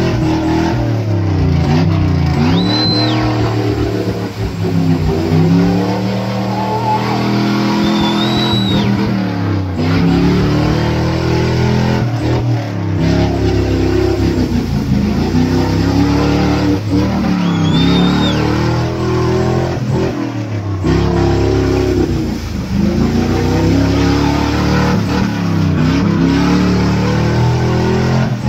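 Off-road vehicle's engine revved hard and eased off again and again, about every three to four seconds, as it churns through a deep mud pit, its wheels flinging mud.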